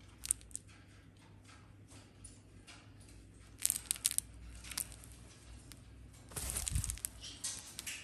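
Cockatoo biting and tearing at a fabric toy with its beak: sharp crunching and crackling snaps in short clusters, with a longer, louder rustling burst and a dull thump about six and a half seconds in.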